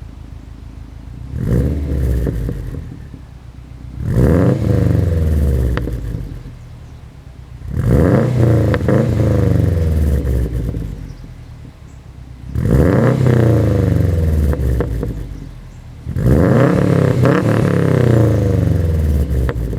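2013 Subaru Impreza WRX's turbocharged flat-four revved five times through an Invidia Q300 catted turboback exhaust, each rev climbing then falling back to idle. The first rev is shorter and lighter than the other four.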